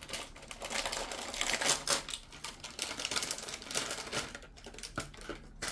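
Plastic packaging crinkling as it is handled: a dense, irregular run of small crackles and clicks.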